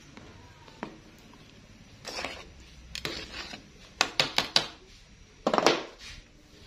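A utensil scraping and knocking against an aluminium pot while a thick stew is stirred: several short scrapes and a quick run of sharp clicks about two-thirds of the way through.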